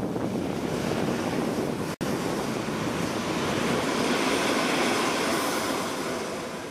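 Trenitalia electric locomotive passing close at speed: a steady rush of wheel, rail and air noise. It cuts out for an instant about two seconds in and fades near the end as the train clears.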